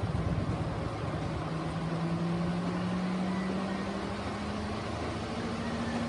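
Sharp twin-tub washing machine running its wash cycle with water in the tub: a steady motor hum that creeps slightly higher in pitch over the last few seconds.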